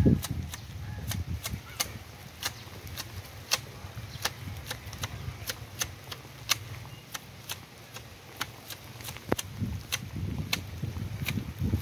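Manual hedge shears snipping leaves and twigs off a ficus: a steady run of sharp snips, about two or three a second, as the blades close.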